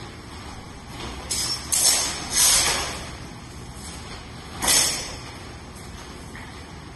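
Steel training longswords clashing and scraping in a sparring exchange. A quick run of loud, ringing clashes comes between about one and three seconds in, and one more near five seconds.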